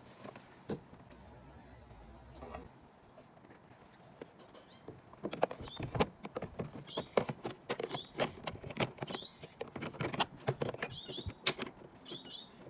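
Hands working the cabin filter parts: from about five seconds in, a busy run of clicks and knocks with short high squeaks.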